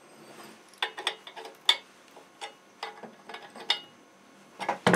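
Irregular small metal clicks and taps of nuts, bolts and washers being handled and fitted by hand on the aluminium clamp of a chainsaw log-milling attachment, with a louder knock near the end.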